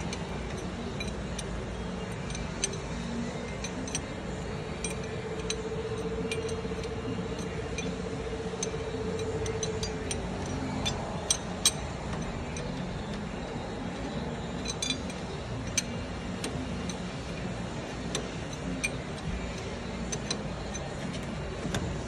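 Irregular metallic clicks and clinks of a hand wrench tightening the bolts of a new front wheel hub assembly into a steel steering knuckle, over steady background noise. A faint steady tone sounds for a few seconds about a quarter of the way in.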